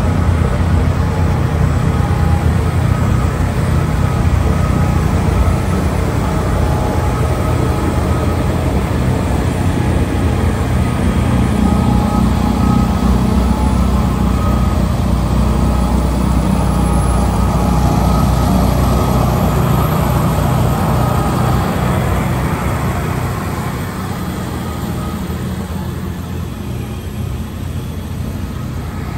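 Heavy diesel engines and a snowblower running steadily: a wheel loader with a front-mounted snowblower throws snow through its chute into a dump trailer, with the tractor truck alongside. The loud low drone carries a few steady higher tones and eases slightly in the last several seconds.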